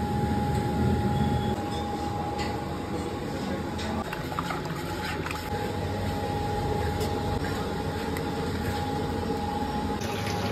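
Steady rumbling noise with a constant thin whine, as from a busy stove or kitchen machinery. Over it come scattered taps and scrapes of a metal scraper on a large iron kadhai of simmering milk as the cream layers for lachhe wali rabri are scraped and gathered.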